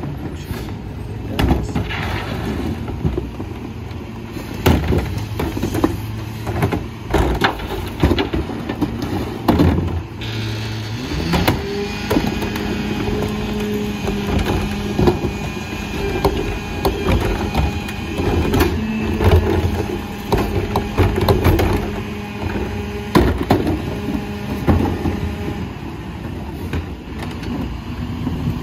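Kenworth garbage truck with a Leach 2RIII rear-loader body, its diesel engine running while plastic carts and bags bang against the hopper in repeated sharp knocks. About eleven seconds in, the engine note steps up to a higher steady hum and holds, as when the truck throttles up to drive the hydraulic packer.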